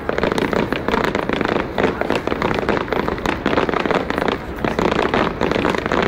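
Fireworks display: a dense, unbroken run of bangs and crackling from aerial shells bursting in quick succession.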